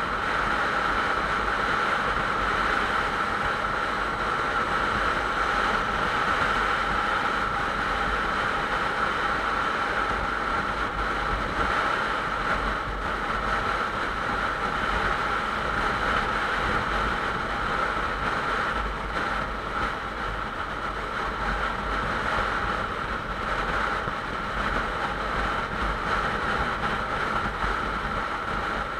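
Steady wind rush on the camera microphone, together with a motorcycle's engine and tyre noise at highway cruising speed.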